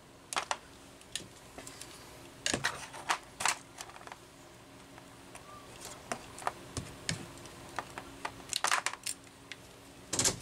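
Light, scattered clicks and rustles of hands handling a steel tape measure and a length of yellow plastic fuel hose on a workbench, over a faint steady hum.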